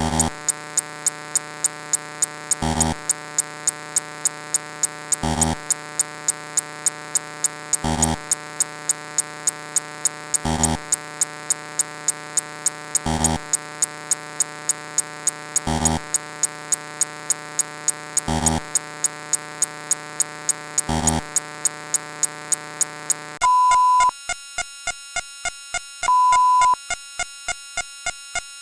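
Looping electronic sound effects: a dense buzzing synthetic chord with a sharp tick about three times a second and a heavier low hit every two and a half seconds. About 23 seconds in it changes to a steady beep of under a second, repeating every two and a half seconds over continuing ticks.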